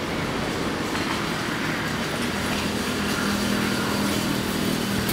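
Steady street background noise of passing traffic, with a low engine hum coming in about two seconds in.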